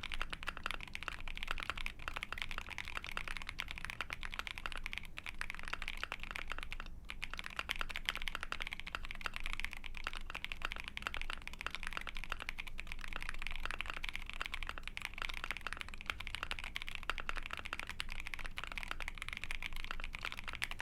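Continuous fast typing on an Ai03 Vega mechanical keyboard with a POM plate, Krytox 205g0-lubed Poseidon linear switches (nylon housings, long-pole POM stems) and IFK OG keycaps: a dense stream of keystrokes with a brief pause about seven seconds in.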